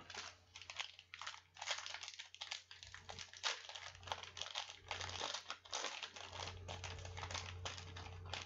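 Foil wrapper of a 2016 Prizm football card pack crinkling as it is handled and opened by hand, a dense, continuous run of crackles.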